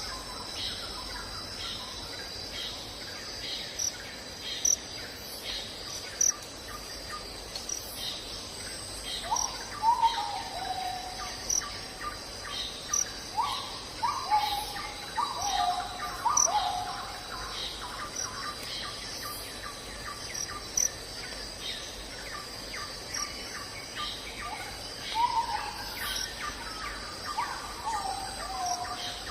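Forest ambience: crickets chirring steadily in a high pitch, with groups of short downward-sliding calls repeating now and then and scattered sharp ticks.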